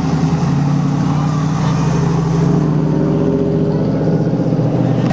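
Hot rod engines running at low revs as the cars cruise slowly past one after another: a steady, low engine note.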